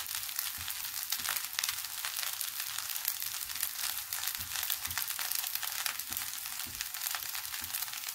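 Egg fried rice sizzling in a nonstick pan: a steady hiss thick with fast, fine crackles, with a few soft low knocks now and then.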